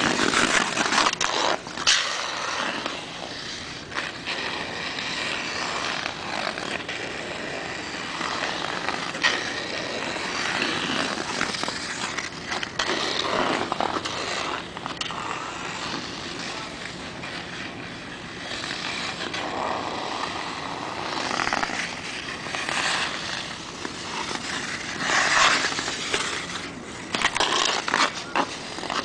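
Ice skate blades scraping and gliding across rink ice in irregular strokes, with a few sharp clicks.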